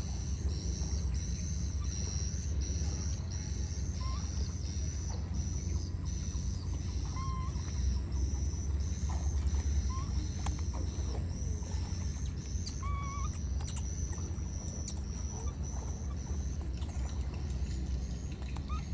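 Outdoor wildlife ambience: a high chirring that pulses about twice a second over a steady low rumble, with a few scattered short chirps.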